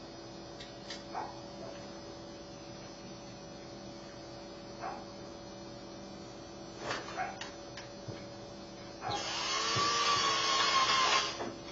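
Scattered light clicks of handling the parts of a 250 V 50 A plug, then, about nine seconds in, a small power screwdriver runs with a steady whine for about two seconds before stopping.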